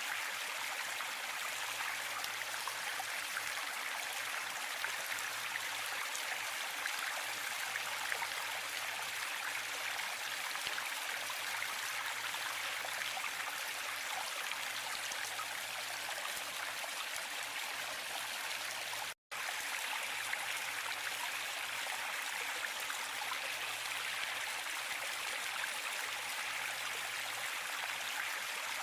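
Waterfall: a steady, even rush of falling water, mostly hiss with little low rumble. The sound cuts out completely for an instant about two-thirds of the way through, then resumes unchanged.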